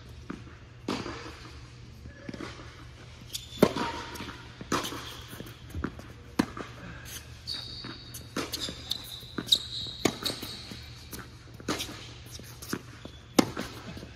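Tennis balls bouncing on an indoor hard court and being struck by racquets: a string of separate sharp knocks and pops, the loudest about a third of the way in, again past the middle and near the end.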